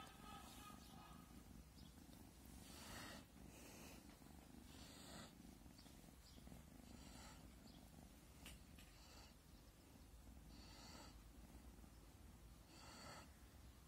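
A fluffy white long-haired kitten purring faintly, a low steady rumble, while it is being petted. Soft hissy sounds come about every two seconds.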